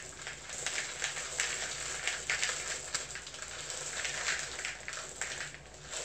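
White chocolate chips poured from a tub into a plastic mixing bowl on a kitchen scale: a continuous dense run of small hard ticks as the chips land.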